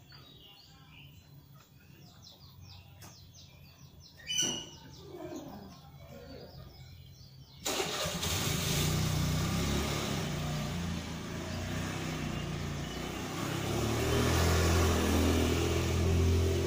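Small electric grinder switched on about seven and a half seconds in and running steadily while it grinds the edge of an electric planer blade. Before it starts there are faint bird chirps and a single sharp click.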